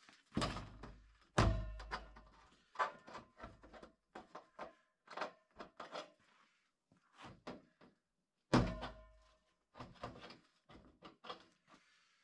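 A large spiral-seam galvanized steel duct pipe being handled and knocked: a run of hollow metallic thumps and clanks, with the pipe ringing briefly after the bigger knocks. The heaviest thumps come about half a second in, at about a second and a half, and again at about eight and a half seconds.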